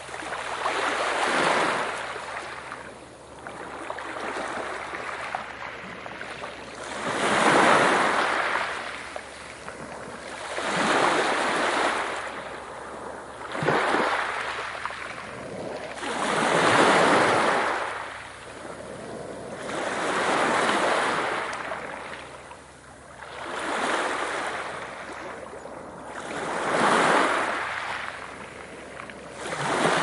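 Sea waves breaking and washing in, each one a swelling, fading rush of noise, coming about every three seconds.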